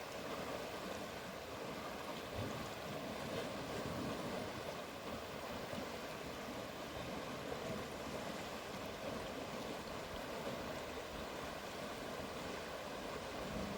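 Steady rush of a river flowing.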